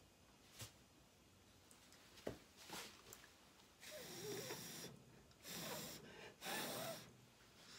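A person blowing three short puffs of air across wet acrylic paint on a canvas, in the second half, with a slight whistle in the breath. A couple of faint clicks come earlier.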